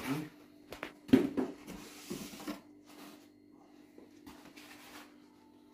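Cardboard box and paper packaging being handled: a few knocks and rustles, the loudest about a second in, then quieter.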